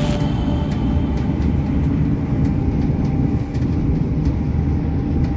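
Passenger train running at speed, heard from inside the carriage: a steady low rumble of wheels on the track, with faint clicks now and then.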